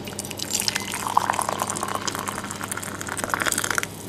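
Cooking oil poured from a plastic measuring cup into a glass bowl of dry brownie mix: a continuous trickling, splashing pour that stops sharply shortly before the end.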